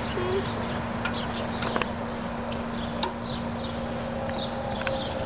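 Birds chirping in short high notes over a steady outdoor hum, with a couple of light clicks.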